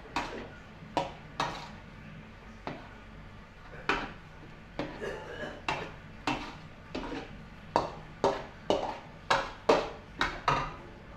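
A metal spatula scraping and knocking against a steel wok while stirring a thick sauce: about twenty short clatters, coming quicker near the end.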